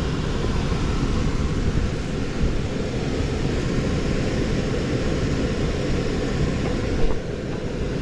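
Steady rumble and rush of air from a running air handler blower, with a brief knock about seven seconds in.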